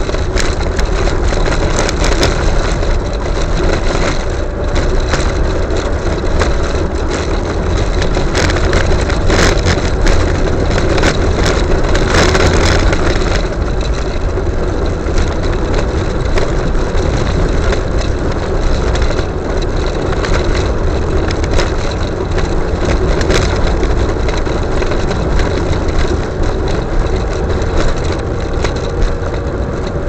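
Car engine running and tyre noise on the road, heard from inside the cabin while driving, with frequent small rattles and knocks that come thickest about a third of the way in.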